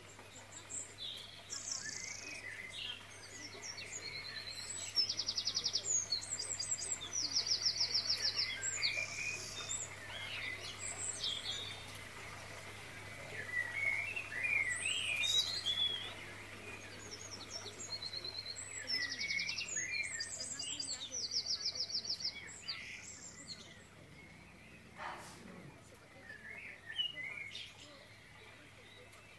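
Birds singing: several overlapping chirps and rapid high trills, repeating in bouts.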